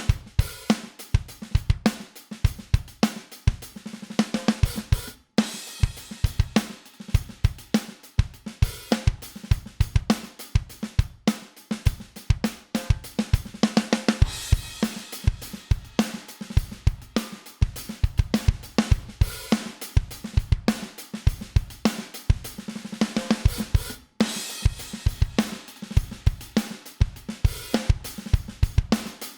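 Drum bus playback: a full drum kit with kick, snare, hi-hat and cymbals playing a steady groove, processed by vari-mu (variable-mu) tube compressor plugins. The groove breaks off for a split second a few times.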